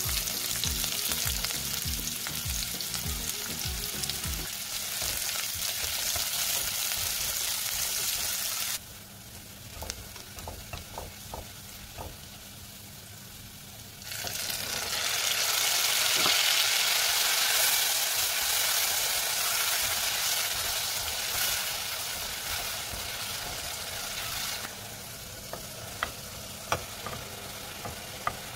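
Sliced onions sizzling in hot vegetable oil in a pot, with a quieter stretch of stirring clicks in the middle. About halfway through, a louder sizzle starts as tomato paste is poured into the hot oil, then it dies down near the end when more chopped onion goes in.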